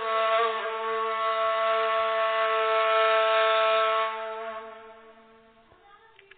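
Background music ending on one long held note that fades away after about four seconds.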